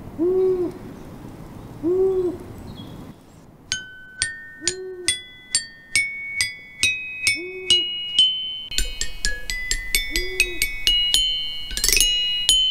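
Soft owl hoots, five in all, each a single note that rises and falls, spaced a couple of seconds apart. About four seconds in, a chiming melody of struck bell-like notes begins and grows busier toward the end.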